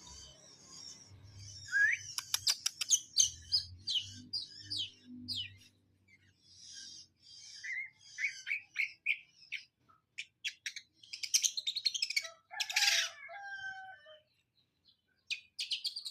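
Long-tailed shrike (cendet) singing a varied song of quick chirps, rapid clicking trills and short whistled notes, broken by brief pauses.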